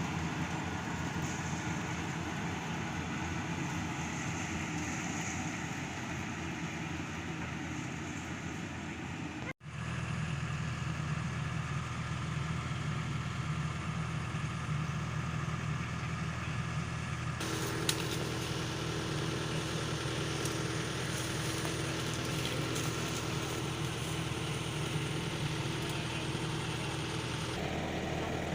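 Yanmar AW-70V corn harvester's engine running steadily, cut off for an instant about a third of the way in, with an abrupt change in its tone about two-thirds of the way through.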